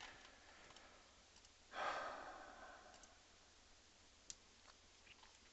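A person sighs once, a breathy exhale about two seconds in that fades over about a second, over near-silent room tone. A couple of faint mouse clicks follow.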